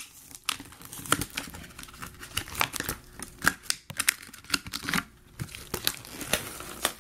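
Toy packaging being handled and pulled apart by hand, crinkling and tearing in irregular crackles.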